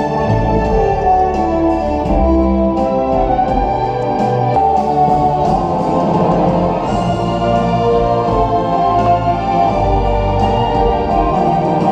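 Instrumental background music with held chords over a steady beat.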